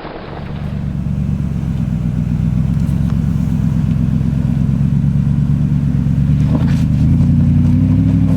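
Off-road SUV engine running steadily, revving up a little near the end.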